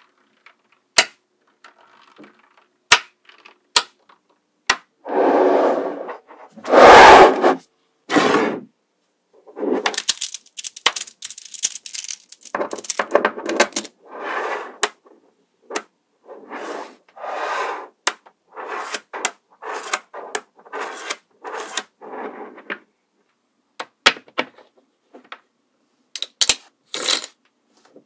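Mini magnetic balls clicking sharply as they snap together, with stretches of rattling and scraping as balls rub and roll against each other. The loudest is a clatter about seven seconds in.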